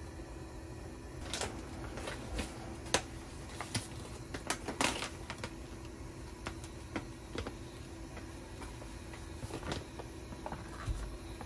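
Scattered clicks and rustles of kimchi-pancake batter being made in a glass mixing bowl: a bag of pancake mix tipped and poured, and a spoon knocking against the bowl. The clicks come thickest in the first half, over a faint steady low hum.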